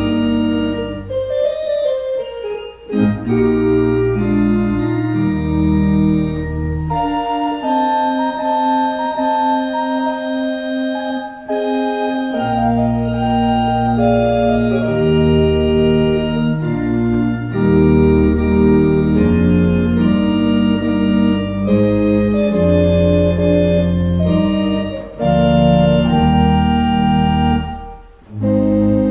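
Organ playing slow, sustained chords over low bass notes; the bass drops out for about five seconds a third of the way in.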